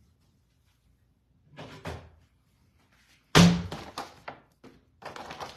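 Kitchen handling sounds: a loud, sharp thunk about three and a half seconds in, then a few lighter knocks and a short rustle near the end.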